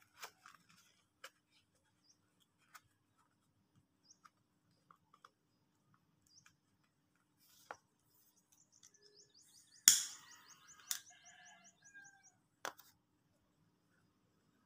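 Scattered faint clicks and taps, with a sharp click about ten seconds in as the loudest sound. Around the same time comes a quick run of high, rising bird chirps, about three or four a second, for a few seconds.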